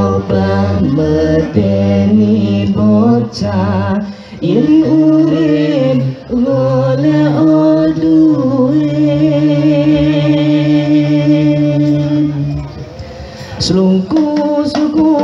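Hadroh singers chanting a sholawat (Islamic devotional song) with little drumming: a few shorter phrases, then one long held note. Frame-drum and rattle strikes start coming back in near the end.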